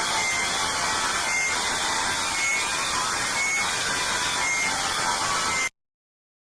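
Emergency alert alarm sound: a loud, harsh static-like hiss with short high beeps about once a second. Near the end it cuts off abruptly to dead silence for about a second.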